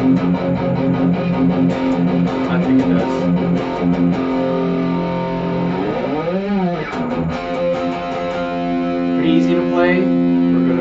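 ESP LTD Truckster electric guitar played through an amp, picked notes and chords ringing. About six seconds in, a pitch slides up and back down.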